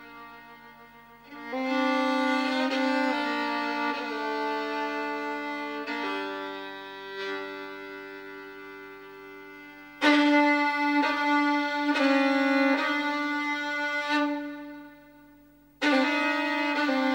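Instrumental music: a bowed violin playing long held notes in phrases. Each phrase fades away and the next comes in sharply, about a second and a half in, about ten seconds in and near the end.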